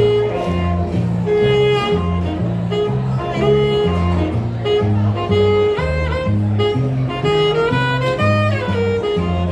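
Jazz-style music: a bass line stepping through a new note about every half second under a higher melody line that slides between notes.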